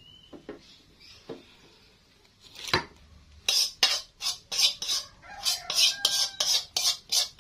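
A metal utensil stirring a pot of pumpkin vegetable stew, scraping and clanking against the pot: a single knock about three seconds in, then quick strokes about four to five a second.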